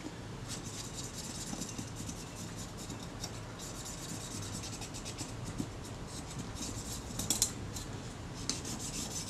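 Solvent-wet cotton swab scrubbing old glue residue off a Kodak Retina IIIS camera's metal top cover: a quick, light scratchy rubbing, with a few sharper clicks about seven seconds in and again near the end.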